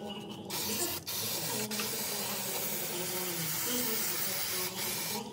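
A steady hiss, with a brief dip about a second in.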